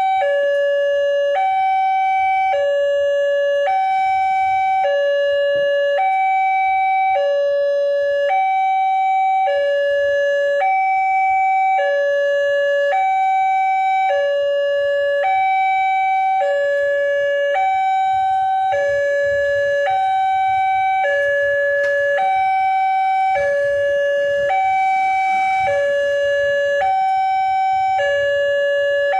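Railway level-crossing warning siren sounding a steady hi-lo alarm: two tones take turns, each held just over a second, repeating without a break.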